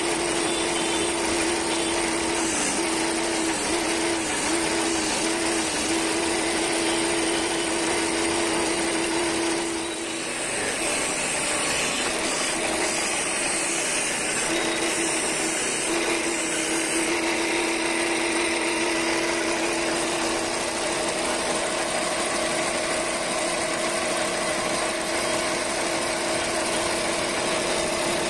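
Wood lathe running with a steady motor hum while a hand chisel scrapes and cuts the spinning wooden blank. The hum fades for a few seconds about ten seconds in, then returns.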